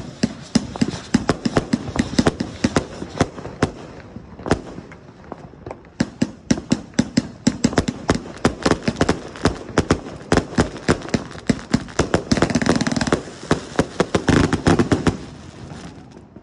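King Longhorn 245-shot firework cake firing in rapid succession: sharp launch and burst reports, several a second, thinning briefly about four to six seconds in. A denser, louder volley comes near the end, and the firing stops shortly before the end as the cake finishes.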